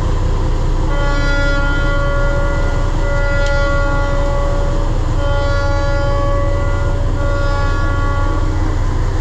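A large fishing boat's engines running with a steady low drone over rushing wake water. From about a second in, held musical chords sound over it in several long swells.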